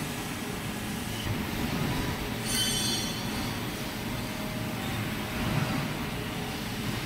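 Steady machine-shop rumble, with a short high metal-on-metal squeal about two and a half seconds in as the jaws of a large engine lathe's four-jaw chuck are worked with a chuck key.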